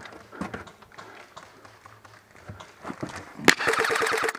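Scattered footsteps and gear knocks as a player moves, then near the end a short burst of rapid automatic fire from an airsoft electric gun.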